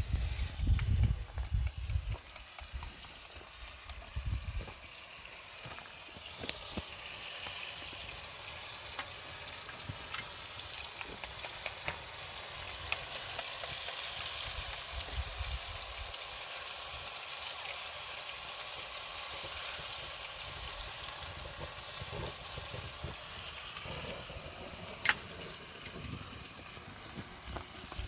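Food sizzling steadily in hot oil in a pan, with a few sharp clicks and some low thumps in the first few seconds.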